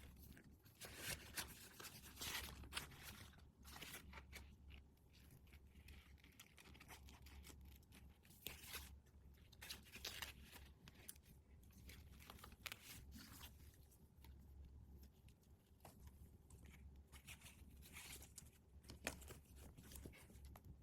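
Faint, intermittent crinkling and tearing of packaging being opened by hand, with scattered small crackles and clicks. A steady low hum runs underneath.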